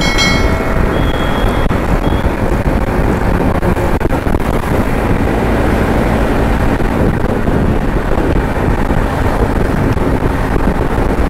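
Bajaj Pulsar NS200 motorcycle riding at road speed: a steady rush of wind on the microphone over the running engine.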